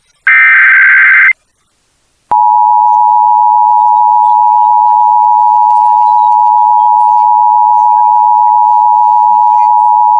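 Emergency Alert System broadcast tones: a harsh one-second burst of SAME header data, then about a second of silence, then the steady two-tone EAS attention signal (853 and 960 Hz) that starts about two seconds in, holds for about eight seconds and cuts off near the end. Together they announce an incoming emergency alert, here a civil danger warning.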